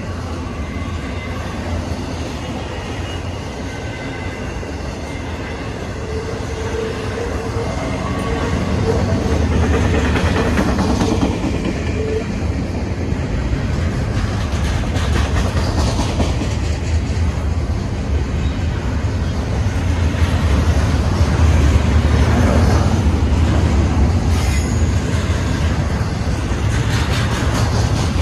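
Double-stack intermodal freight cars rolling past, steel wheels rumbling and clicking over the rail joints, with faint wheel squeal in the first half. The rumble grows louder about nine seconds in.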